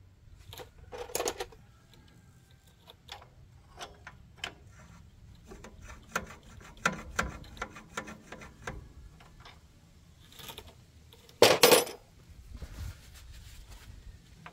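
Scattered metallic clicks and knocks as tractor clutch-shaft parts and hand tools are handled, with a louder metal clatter about eleven and a half seconds in.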